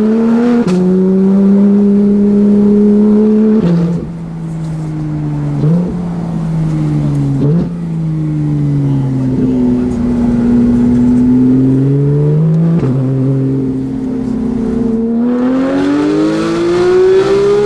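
Porsche 911 GT3 (second-generation 991) 4.0-litre flat-six engine through a full Fi exhaust, driven in PDK Sport mode. The engine pitch steps down and jumps up several times with the gear changes, settles lower for a few seconds, then climbs steadily as the car accelerates near the end.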